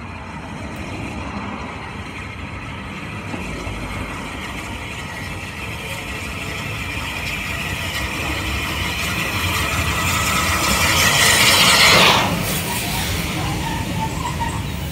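Steam locomotive running towards and passing beneath, its rumble and exhaust growing steadily louder to a peak about twelve seconds in, then dropping away.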